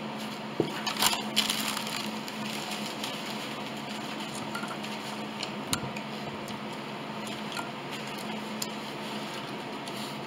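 Close-miked eating sounds: chewing and crunching, with a cluster of sharp clicks and crackles about a second in and scattered single clicks after. A low steady hum runs underneath.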